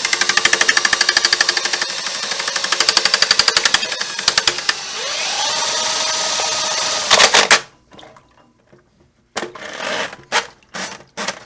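A drill-driven drain snake auger spinning its cable in the drain, chattering in rapid rhythmic knocks about ten a second as it works against a blockage. It then runs steadier with a rising whine and stops suddenly with a clatter, followed by a few separate clanks.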